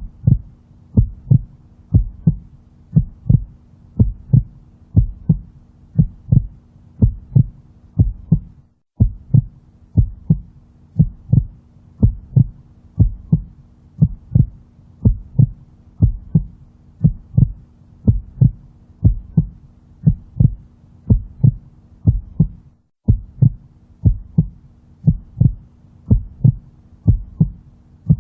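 Heartbeat sound for baby sleep: a steady, even lub-dub double beat repeating about once a second, over a faint steady hum. It drops out for a moment twice.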